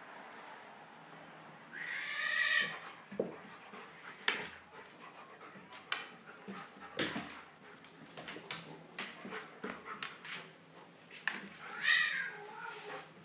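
A dog and a cat wrestling on a wooden floor: scuffling and sharp knocks, with two high, drawn-out animal cries, one about two seconds in and one near the end.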